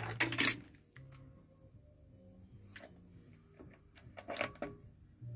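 Two short bursts of clicking and rattling, at the start and about four seconds in, from handling equipment on the test bench, over quiet background music.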